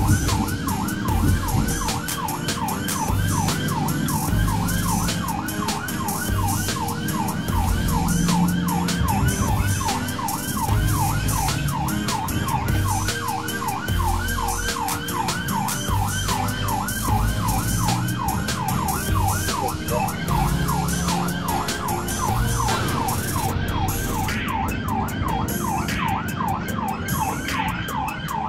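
SAMU ambulance siren wailing in a fast yelp, sweeping up and down about three times a second, over the low rumble of the moving vehicle.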